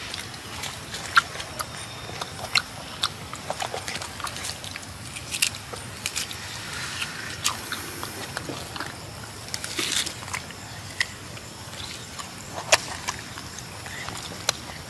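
A macaque chewing and biting fruit at close range: irregular clicks and smacks, a few of them sharper, over a steady background hiss.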